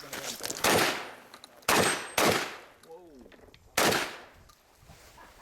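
Semi-automatic shotgun firing four shots in about three seconds, unevenly spaced, two of them in quick succession about a second and a half in.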